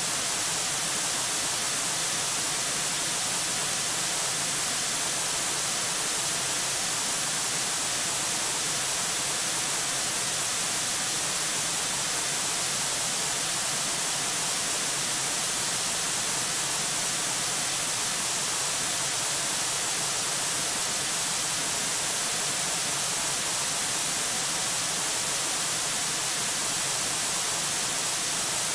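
Steady, even hiss of static from a nest camera's audio feed, unchanging throughout.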